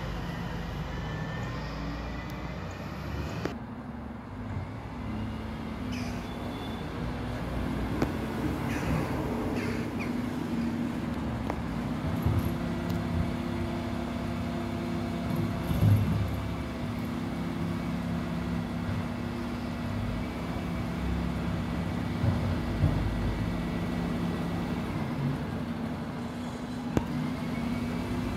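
Dennis Elite 6 refuse lorry's engine running steadily at a standstill, with a few short knocks and clatters over the hum, the loudest about halfway through.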